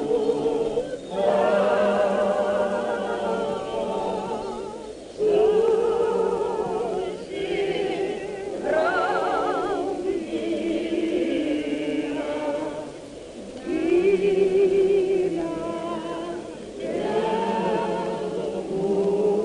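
A choir singing, with long held notes that waver in pitch, sung in phrases with short breaks between them.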